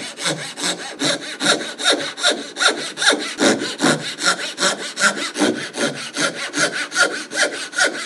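Small backsaw making rip cuts down the end grain of a board held in a bench vise, with quick, even strokes about four or five a second that stop near the end.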